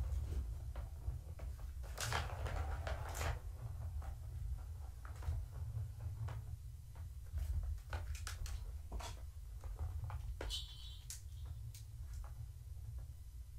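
Kittens playing with a Catit plastic ball-in-track toy: scattered knocks, clicks and rattles as the toy is batted, with two louder scrambling noises about two and three seconds in, over a steady low hum.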